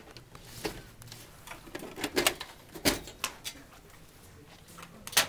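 Clicks and knocks of a desktop computer case being opened: the metal side cover unlatched and lifted off and the chassis handled on a desk. The sharpest click comes near the end.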